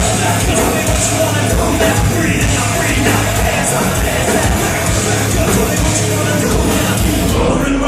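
Rap-metal band playing live at full volume: heavy guitars, bass and pounding drums, with yelled vocals. Just before the end the deep bass and cymbals drop out.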